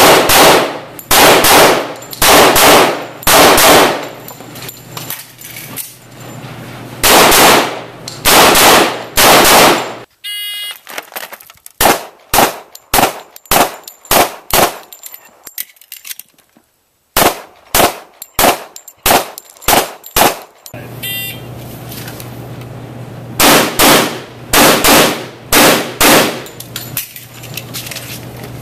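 STI single-stack 1911-style pistol fired in rapid pairs and strings of shots, each shot echoing heavily indoors. Through the middle stretch the shots are drier, outdoors, and a metallic ring follows the shots twice.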